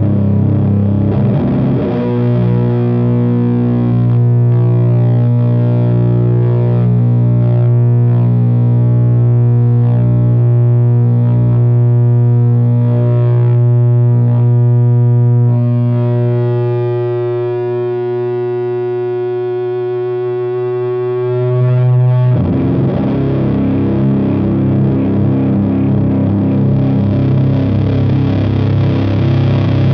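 Electric guitar (Fender Jazzmaster with Gibson P94 pickups, tuned to C standard) through the Burden high-gain fuzz/distortion pedal and an Ampeg V4B amp, playing heavy, long-sustaining drone chords. One low chord struck about two seconds in rings for about twenty seconds, its top end thinning and its level sagging, before a new chord is struck near the end.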